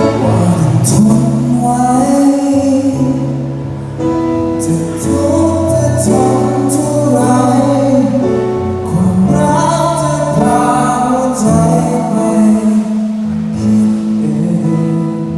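Live band music with a male vocalist singing a Thai pop-rock ballad over sustained chords and repeated cymbal hits.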